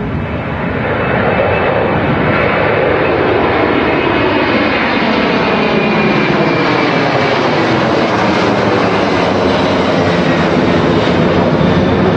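Airbus A330 jet engines at take-off power, a loud steady rumble that swells about a second in as the airliner goes by, with tones falling in pitch.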